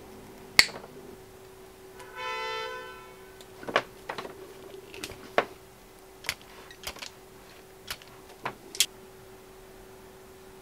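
Hand-tool clicks and snips as side cutters cut through a power cord, with a loud snap about half a second in, followed by scattered clicks from an automatic wire stripper stripping the wires. A steady hum runs underneath, and a brief pitched note sounds about two seconds in.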